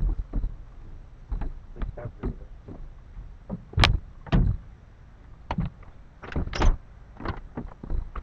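A series of irregular knocks, thumps and short scrapes, about a dozen spaced unevenly, the loudest a sharp knock about four seconds in: handling noise as gear is picked up and moved about.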